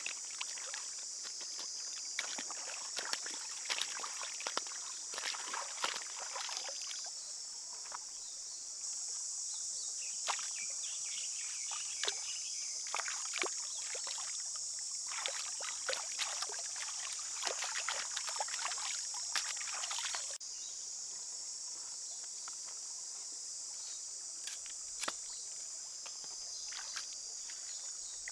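Water splashing and swishing as hands rinse red cabbage and long beans in a shallow stream, in quick irregular splashes over a steady high hiss. The splashing thins out after about twenty seconds.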